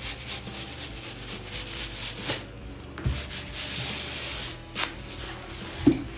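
A Black & Decker Classic iron is pushed back and forth over ribbon on a cutting mat, making a dry rubbing, scraping sound with a few light knocks. There is a hiss lasting about a second and a half a little past the middle.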